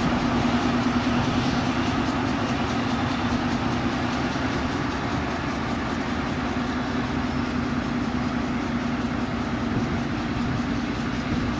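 Diesel-hydraulic BB303 shunting locomotive's engine running steadily with a strong low hum as it hauls passenger coaches slowly away.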